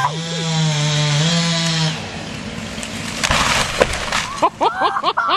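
A chainsaw running steadily at high revs for about two seconds, then cutting out. About a second later comes a loud burst of wood cracking and splintering as it breaks.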